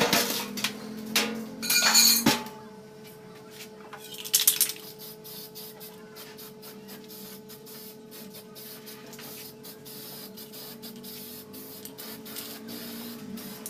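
Aerosol spray can hissing in short bursts, loudest about two seconds in and again about four and a half seconds in, with a knock and light handling clicks between.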